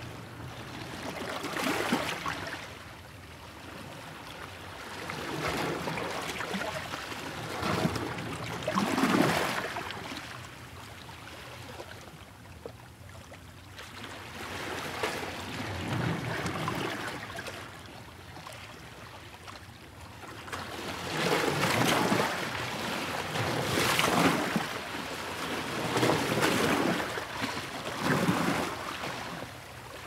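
Ocean waves breaking and washing up the shore: a rushing surf noise that swells and fades as each wave comes in, the surges a few seconds apart and coming most often in the last third.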